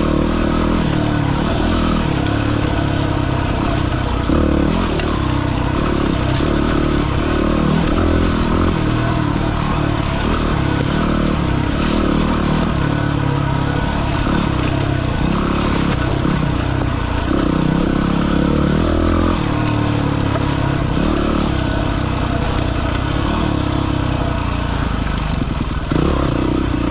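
Trail bike's single-cylinder engine running under way, its note rising and falling with the throttle, with a few sharp clicks and knocks from the riding along the way.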